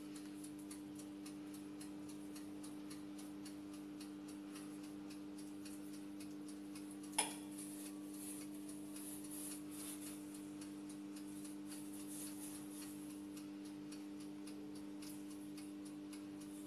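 Chef's knife scoring the rind of a raw pork knuckle on a wooden cutting board: faint rapid ticks and scrapes as the blade cuts the skin, with one sharper click about seven seconds in. A steady low hum runs underneath.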